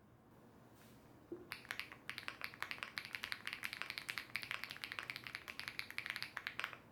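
Fast typing on a mechanical keyboard: a quick, steady run of clacking keystrokes that starts about a second and a half in and stops near the end.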